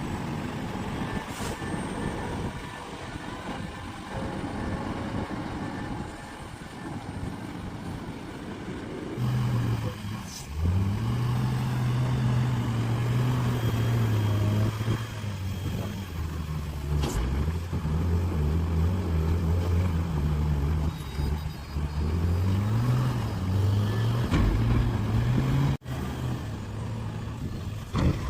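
Heavy diesel machinery at a mine working under a rushing background noise. About ten seconds in, a big diesel engine comes up loud, and its pitch rises and falls as it is revved under load.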